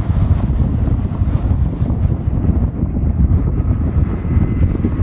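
Steady low rumble of road and wind noise from a vehicle moving at road speed, with wind buffeting the microphone.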